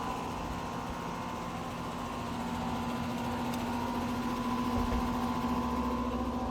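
Steady mechanical hum of a running motor or fan, one constant low tone with a fainter higher one. A low rumble joins near the end.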